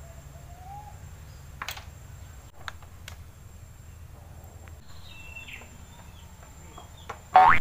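Quiet rural background with faint bird chirps and a few soft clicks. Near the end comes a loud cartoon-style 'boing' comedy sound effect, falling in pitch.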